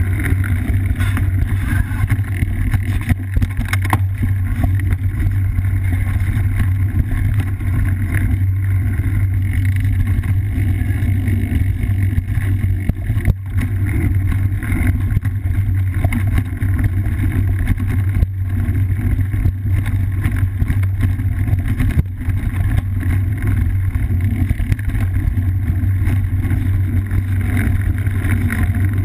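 Steady low rumble of wind and vibration on a bike-mounted GoPro as a cyclocross bike rides a dirt singletrack, with tyre noise and occasional knocks over bumps.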